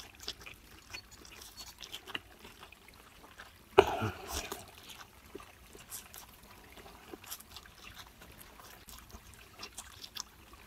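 A person slurping up fried instant noodles and chewing with wet, clicking mouth sounds, with one louder slurp about four seconds in.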